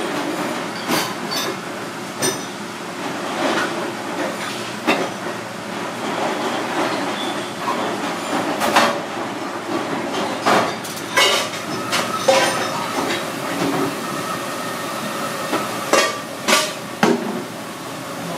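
Chef's knife scoring abalone on a plastic cutting board: irregular sharp knocks as the blade meets the board, over a steady background clatter.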